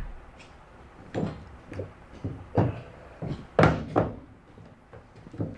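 A string of irregular knocks and clunks, about seven or eight, the loudest a little past the middle, from a sheet-metal patch panel being handled and set into a car's quarter panel.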